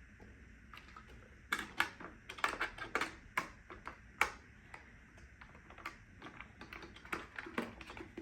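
Irregular sharp clicks and taps of hands working on a Neato Botvac D Series robot vacuum's plastic body, a quick cluster about a second and a half in, then sparser clicks.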